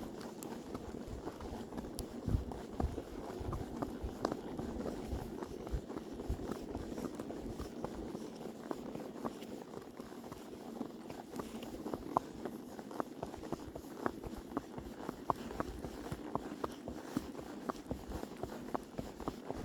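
Hoofbeats of a ridden horse walking: many irregular footfalls and small clicks over a steady low background rustle.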